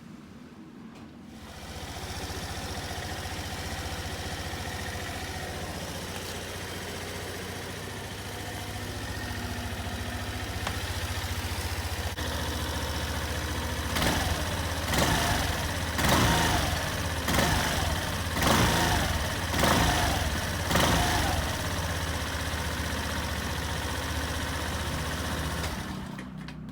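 Suzuki Address V125S scooter's small single-cylinder four-stroke engine starting, then idling steadily. About halfway through it is blipped up about seven times in quick succession, each rev falling back to idle, and it settles to a steady idle, freshly filled with new oil.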